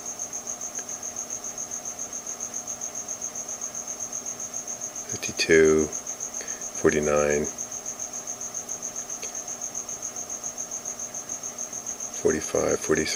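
A steady high-pitched chirping, pulsing about three times a second like an insect, with a few short voice-like sounds about halfway through and near the end.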